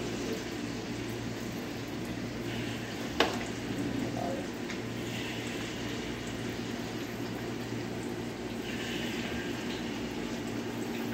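Battered food deep-frying in hot oil in a steel wok, a steady sizzle, with one sharp clink about three seconds in.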